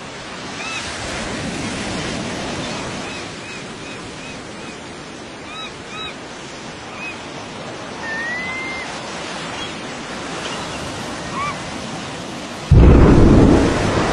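Surf and wind with a few short high bird chirps. About thirteen seconds in, a sudden loud low boom breaks in and keeps rumbling: the blast of an underwater atomic bomb test.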